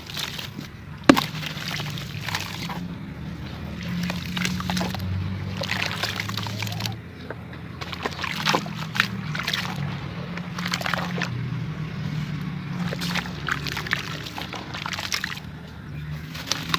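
Clumps of sand-cement being crumbled: irregular crunching and crackling, with one sharp crack about a second in, over a low steady hum.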